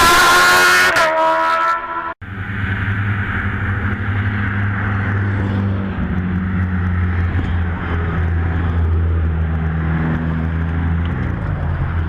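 A hillclimb race car's engine running hard at high revs, loud and then cut off abruptly about two seconds in. After the cut comes a steadier, lower engine drone with little change in pitch.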